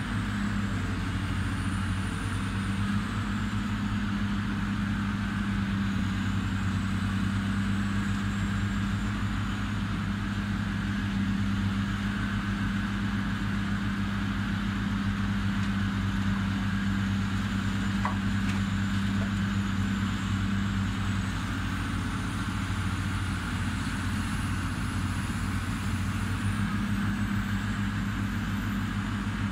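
Diesel engines of heavy demolition machinery running with a steady low drone. One of its tones drops away about two-thirds of the way through and comes back near the end, and a faint high whine rises and falls above it.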